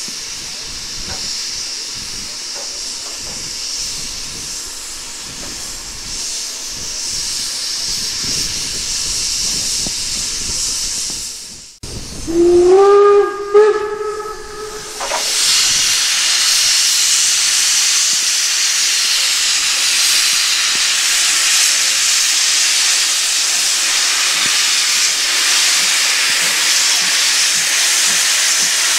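Steam locomotive 50 2988, a German class 50 2-10-0, hissing steam as it stands. About halfway through it sounds its steam whistle in two blasts, each sliding up in pitch before holding steady. After the whistle a louder steady hiss of steam blows from the open cylinder drain cocks as the engine starts away.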